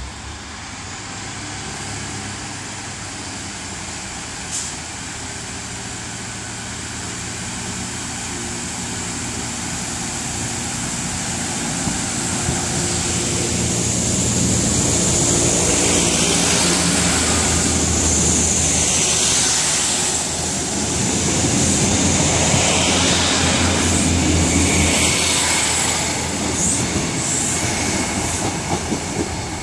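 British Rail Class 156 Sprinter diesel multiple unit pulling away and passing close by: its underfloor Cummins diesel engines run under power and grow louder as the train accelerates past, with rail and wheel noise and a high hiss, then ease off as it moves away.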